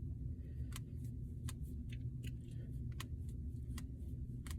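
Fingers and knuckles cracking: about five small sharp pops at uneven intervals, over a steady low background hum.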